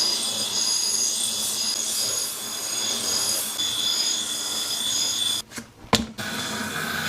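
Steady abrasive scraping of rusty steel on a large axe head, metal being filed or rubbed down as the rust comes off and the edge is worked. It breaks off briefly a little after five seconds with a sharp click, then carries on.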